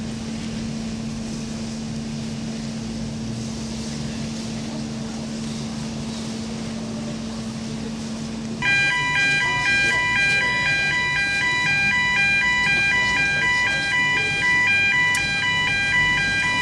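A steady low mechanical hum with a held tone, then about halfway through a loud electronic two-tone warning alarm starts suddenly and keeps alternating evenly: the swing bridge's warning signal sounding as the road barriers lift.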